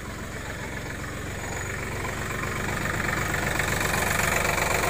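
A motor vehicle's engine idling with a steady, rapid low pulsing, growing gradually louder.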